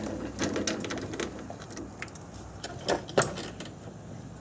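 Ratchet wrench clicking in short, irregular runs while loosening a 12 mm fastener, with one louder knock about three seconds in.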